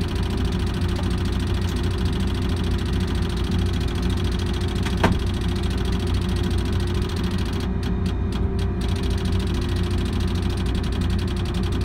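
Liebherr LTM 1160-5.2 mobile crane's diesel engine running steadily during a reel lift, a low hum with a steady tone over it. A single sharp click about five seconds in.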